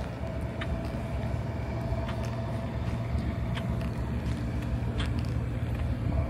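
Steady low rumble of an idling engine with a faint steady whine above it, and a few scattered light clicks.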